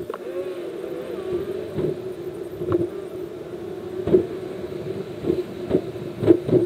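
A car driving, heard from a camera mounted inside it: a steady hum holding one pitch, broken by irregular knocks and thumps, the loudest near the end.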